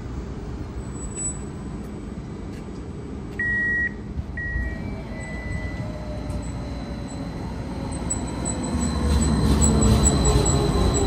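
Tacoma Link light rail vehicle coming closer: a faint motor whine sliding down in pitch and a low rumble growing louder over the last few seconds. A short electronic beep sounds about three and a half seconds in, with a shorter one a second later.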